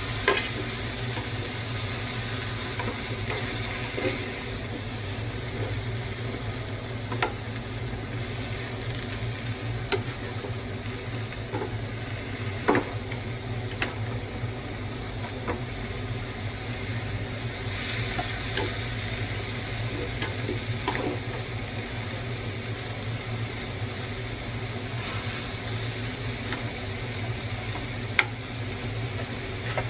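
Water spinach and buffalo meat stir-frying in a pan: a steady sizzle, with wooden chopsticks now and then clicking against the pan, over a steady low hum.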